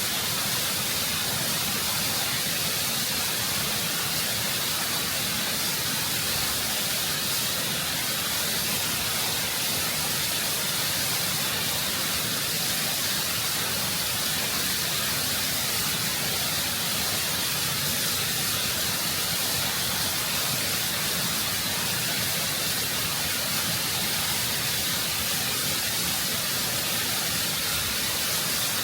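Waterfall pouring over rock, a steady full rush of water with plenty of hiss.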